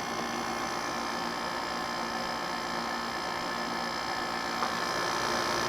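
Older Goldstar-built Kenmore 5000 BTU window air conditioner running with its fan on low, cooling: a quiet, even hum with several steady tones.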